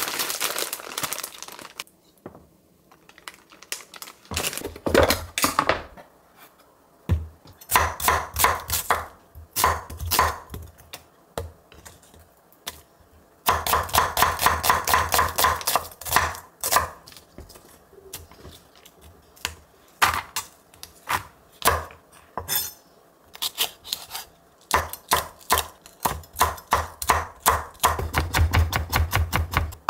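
Kitchen knife chopping vegetables on a wooden cutting board, in runs of quick, even knocks several a second, with short pauses between the runs.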